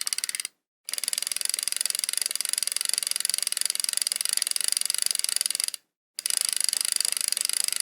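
Fishing reel's ratchet clicking very rapidly in long runs, cutting out briefly twice, just under a second in and about six seconds in.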